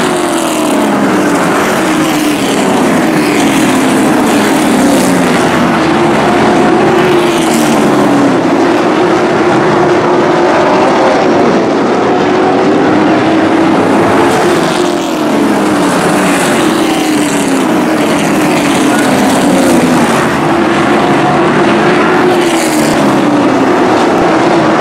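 Engines of a pack of race trucks running at racing speed on a paved oval. The engine note repeatedly falls and rises again in long swells.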